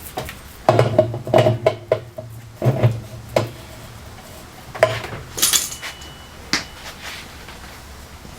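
Metal clinks and clanks of a spanner wrench against the washer's spanner nut and tub as the nut is turned hand tight, in two quick clusters about a second in and near three seconds, then a few single strikes later.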